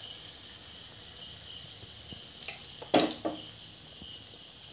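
Rice-and-pumpkin batter frying in hot oil in an iron kadai, a steady sizzle. A few sharp metal knocks, the loudest about three seconds in, come as the square metal mould is freed from the batter and pulled away from the pan.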